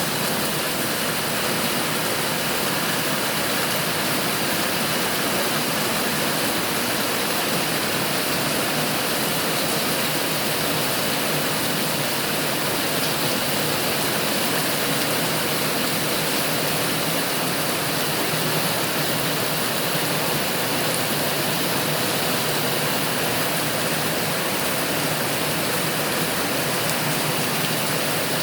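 Steady rain falling: an even, unbroken hiss that holds the same level throughout, with no single drops or knocks standing out.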